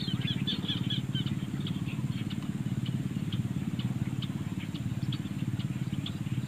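A motor runs steadily in the distance with a low, even throb, with many short, high bird chirps scattered over it.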